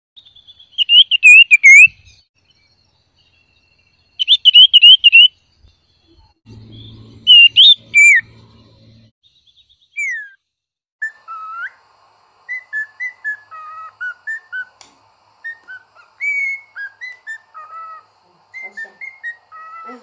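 Songbirds singing: three loud, wavering whistled phrases in the first eight seconds, then, from about eleven seconds in, a quicker run of short chirps over a faint steady drone.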